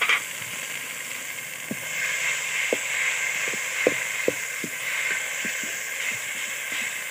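Biryani masala with whole spices sizzling and hissing as it fries in a steel pot, stirred with a perforated steel spoon, with scattered small clicks and pops through the hiss.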